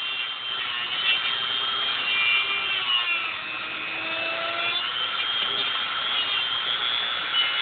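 Dremel rotary tool running at high speed, grinding a raised section of the hub down flat. Its high whine wavers and dips in pitch about halfway through as it bears on the work.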